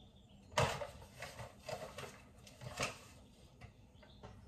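Self-rising flour being measured out and added to a mixing bowl: a sharp knock about half a second in, then several short rustling, scraping strokes.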